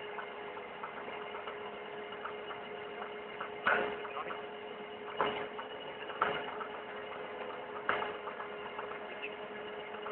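Steady machine hum with a fixed whine from a Fliegl push-off trailer's tractor-driven overloading auger unloading wood chips. Four sharp knocks come a second or two apart.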